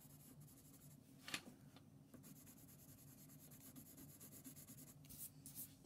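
Faint scratching of a colored pencil shading on paper, with one light tap about a second and a half in.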